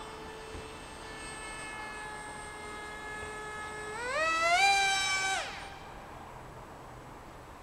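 Electric motor and propeller of a Z84 RC flying wing whining steadily at part throttle. About four seconds in it is throttled up in quick steps to a louder, higher whine, then cut off abruptly a second and a half later.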